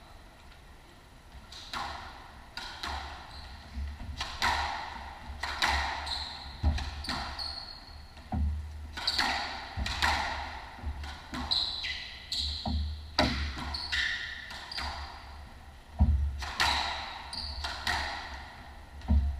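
Squash rally: the ball cracks off rackets and court walls about once a second, starting about two seconds in, with court shoes squeaking on the hardwood floor between strikes.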